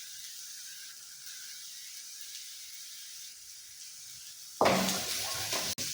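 Onions and garlic sizzling in hot oil in a pan, a steady soft hiss. About four and a half seconds in it jumps abruptly much louder, and it cuts out for an instant near the end.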